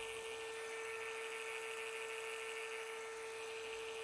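Small 12 V DC computer-style cooling fan running steadily: a constant motor whine over the hiss of its airflow.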